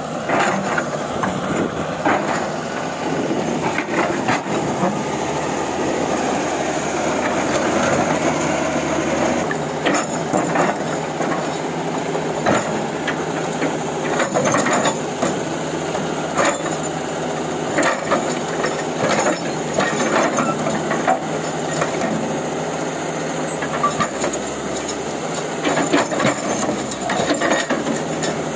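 An old excavator working: its engine runs steadily under load while the bucket digs and scrapes through rock, with frequent irregular knocks and clatter of stone against steel.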